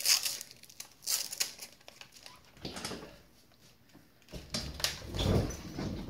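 Scattered handling noises at a workbench: a few sharp clicks and knocks, then a low rumbling scuff near the end.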